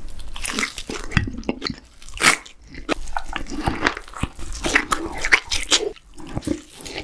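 Close-miked eating: teeth biting and gnawing meat off a grilled tomahawk steak bone and chewing a mouthful of egg-wrapped gimbap, with wet, irregular smacks and crunchy bites.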